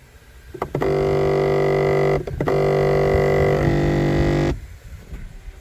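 A loud, steady buzzing drone on one low pitch, like a synth or didgeridoo note. It is held in two stretches with a short break after about a second and a half, then stops about a second before the end.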